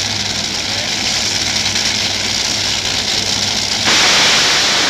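Top Fuel dragsters' supercharged nitromethane V8 engines running at the starting line, then a sudden, much louder, harsh blast about four seconds in as the pair launches at full throttle.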